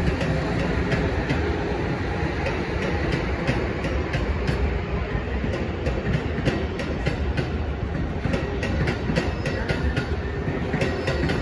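An Amtrak Acela trainset rolling past with a steady rumble, its wheels clicking irregularly over rail joints and switches; the clicks come thicker in the last few seconds.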